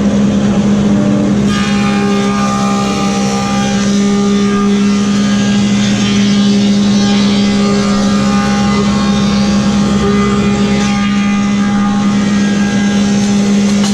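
Woodmaster 725 thickness planer running with its helical cutterhead planing a hardwood board: a loud, steady motor hum, joined about a second and a half in by the rushing noise of the cut.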